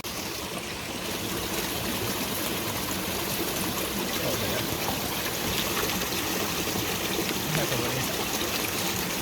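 Steady rush of a flowing stream, getting a little louder about a second in.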